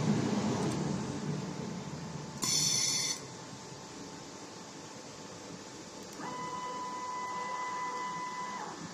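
Motor-driven axes of a desktop three-axis automatic welding machine moving, a printer-like mechanical whirring. A short, shrill high whine comes about two and a half seconds in, and a steady hum-like whine holds for about two and a half seconds near the end.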